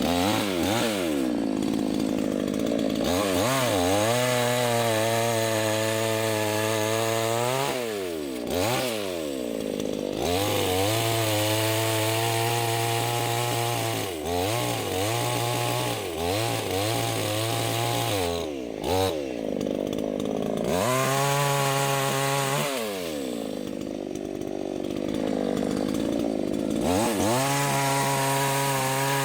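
Small, cheap chainsaw cutting wood, revved to full throttle in several long stretches and easing off between them, the engine pitch falling and climbing back each time. It idles unevenly for a few seconds in the later part.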